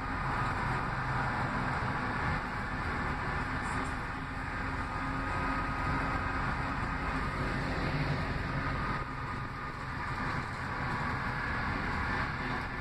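Cabin noise inside an Orion VII CNG city bus on the move: a steady drone of the engine and drivetrain under road and body noise, with a thin steady whine above it.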